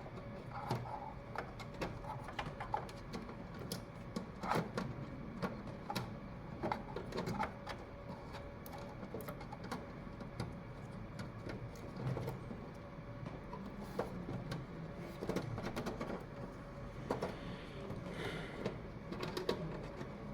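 Irregular clicks and knocks of computer parts and cable connectors being handled and pushed into place inside a desktop PC case.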